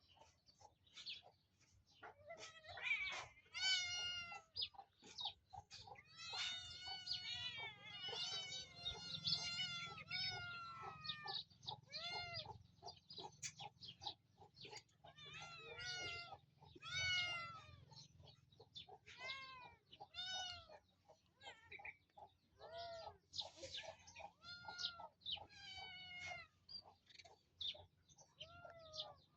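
Cat meowing over and over in many short calls, with a busier stretch of calls in the first half.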